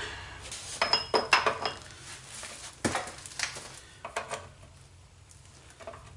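Steel hub and bearing parts clinking and ringing as they are worked free and handled. There is a quick run of metallic clicks about a second in, a single sharp metal knock near the three-second mark, and a few lighter clinks after.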